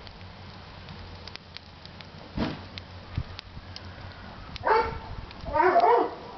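Wood fire crackling in a chiminea, with light scattered pops and a dull knock about two and a half seconds in. Near the end a dog barks twice, the second call longer and wavering, and these barks are the loudest sounds.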